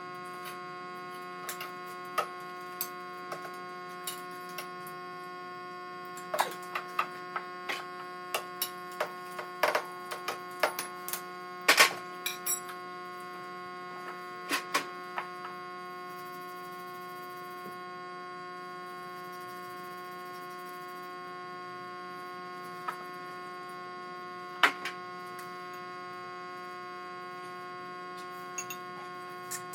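A steady hum with sharp clicks and knocks over it. The clicks come thick in the first half and only a few times later, typical of small tools or parts handled against hard surfaces.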